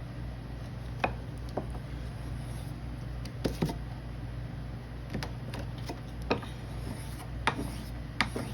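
Scissors being sharpened by hand: scattered sharp clicks and taps of the metal blade against the sharpening tool, roughly one a second, over a low steady hum.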